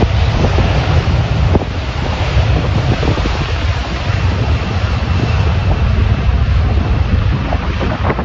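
Airbus Beluga XL's Rolls-Royce Trent 700 turbofans running at takeoff power as the freighter rolls down the runway, under heavy wind buffeting on the microphone. A faint steady high whine comes in about halfway.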